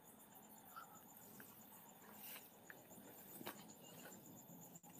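Near silence with faint crickets chirping in a steady, high, even pulse, and a few faint clicks.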